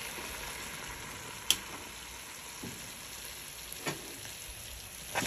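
Chicken pieces in barbecue sauce sizzling steadily in a stainless steel pot on a turned-up stove. Two sharp clicks come about a second and a half in and near four seconds.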